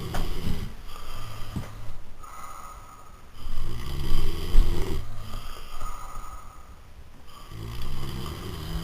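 Snoring: a run of long, rattling snores, one every two to three seconds, some with a higher whistling tone in them.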